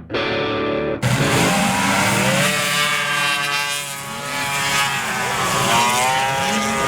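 A distorted electric guitar chord that cuts off about a second in, then racing snowmobile engines running at high revs, their pitch climbing several times as they accelerate.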